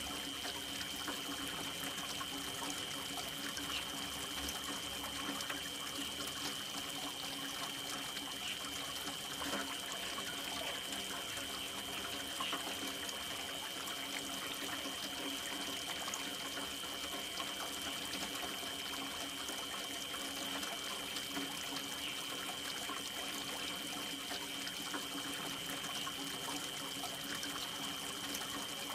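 Steady rain with trickling, running water, unchanging throughout, with a constant high-pitched tone held under it.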